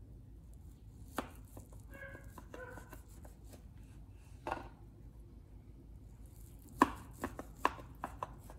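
Knife strokes on a cutting board: scattered sharp taps, with a quick run of them about seven seconds in. Two short ringing notes come about two seconds in.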